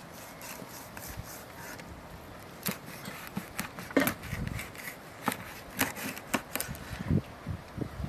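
Large kitchen knife cutting a whole fish into steaks on a wooden cutting board: after a quiet start, several sharp knocks and taps as the blade meets the board, with a few duller thumps.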